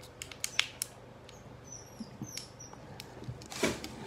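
Play-Doh being pushed back into its plastic tub by hand: scattered soft clicks and taps of fingers and container, with a louder rustle near the end. A few faint, short, high squeaks come about halfway through.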